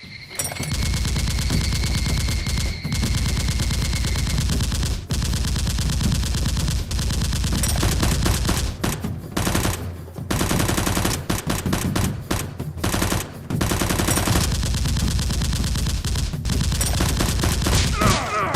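Rapid automatic gunfire sound effects in long strings, broken by a few short pauses.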